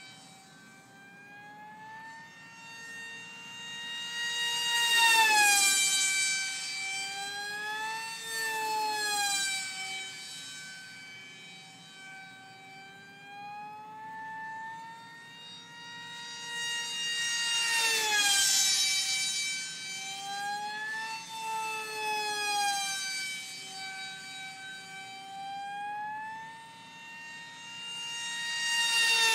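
Electric RC flying wing (RiteWing Deamon) with a Scorpion brushless motor on 3S, its motor and propeller giving a high whine in flight. The pitch swings up and down, and the whine swells on close passes about five seconds in, again near eighteen seconds and at the end, dropping in pitch as the wing goes by.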